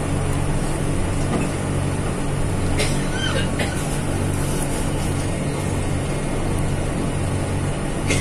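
Steady running noise inside a moving passenger train coach: wheels rumbling on the rails under a continuous low hum.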